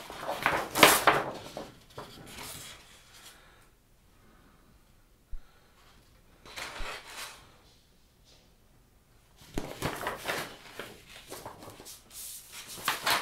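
Paper posters rustling as they are handled and unfolded, in bursts near the start, once briefly in the middle and again through the last few seconds, with a near-quiet stretch between.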